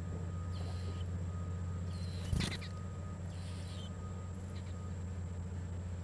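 Nestlings giving a few short bursts of high-pitched begging cheeps while a parent bird feeds them at the nest, over a steady low hum. A single sharp knock about two and a half seconds in is the loudest sound.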